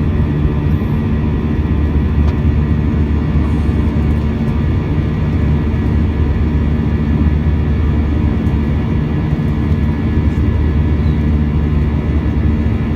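Airbus A321 engine and airflow noise heard inside the passenger cabin: a steady low roar with several steady humming tones over it, unchanging throughout.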